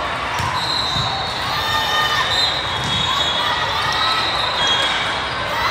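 Din of a convention hall full of volleyball courts in play: athletic shoes squeaking on sport-court flooring, balls being struck and bouncing, and a hubbub of voices echoing in the large hall.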